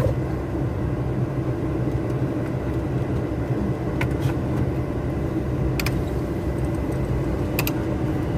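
Heavy truck's diesel engine running steadily at low speed while the truck is manoeuvred, with a few short clicks about halfway through and near the end.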